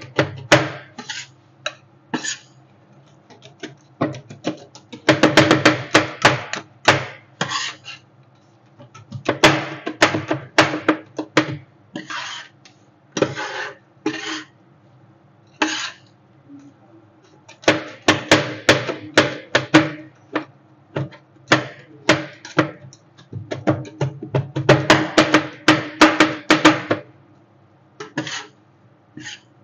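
Metal spatulas chopping and scraping on a frozen steel plate for rolled ice cream, in quick runs of clacking strikes with short pauses between them, over a steady low hum.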